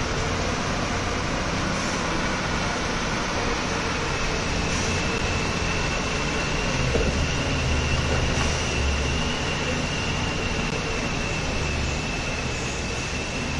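Heavy cargo truck's diesel engine labouring as it crawls over a rough, rocky mountain track, its rumble swelling about halfway through, over the steady rush of a nearby waterfall. A thin, steady high whine comes in a few seconds in and holds to the end.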